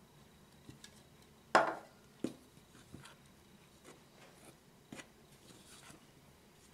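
Metal spoon stirring flour into batter in a plastic bowl: soft scraping with a few knocks of the spoon or cup against the bowl, the loudest about a second and a half in.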